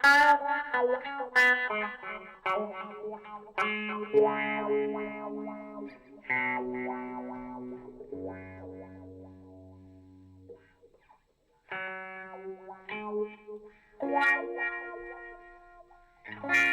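Ibanez S470 electric guitar played through effects pedals with some distortion: picked notes and chords, then a held chord that fades out about halfway through. After a moment's silence the playing starts again.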